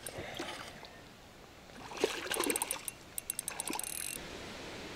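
Water running on a river riffle, with a louder splash-like disturbance about two seconds in followed by runs of fast, faint high clicking.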